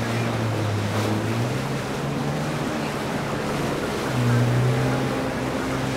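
A personal watercraft (jet ski) engine running at speed, a steady drone over the rush of spray and wake. The engine note shifts in pitch and swells louder about four seconds in.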